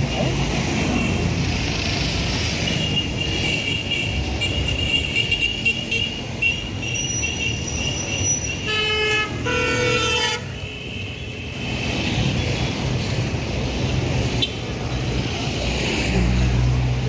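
Busy city street traffic: vehicle engines and road noise running throughout, with car horns honking about halfway through.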